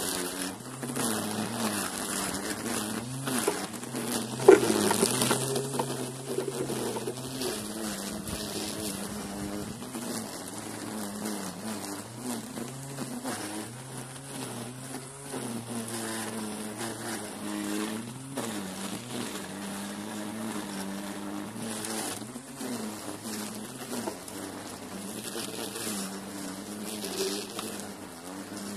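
Electric string trimmer (whipper snipper) running and cutting grass, its motor hum stepping up and down in pitch as the line meets the growth, with one sharp hit about four and a half seconds in.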